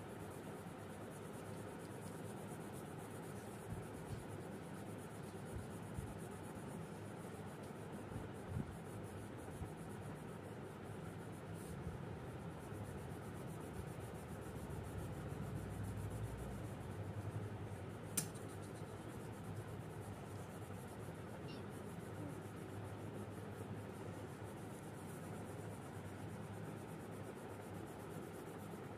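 Pencil scratching on drawing paper as lines and shading are drawn, soft and steady, with a few light clicks of the pencil.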